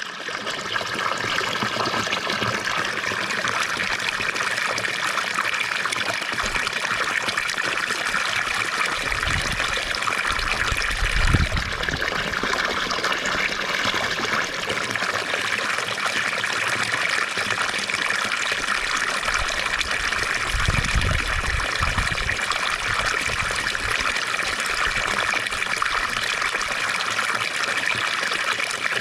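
Fountain water splashing and trickling in a steady, even rush. There are a few low rumbles underneath, about ten seconds in and again about twenty-one seconds in.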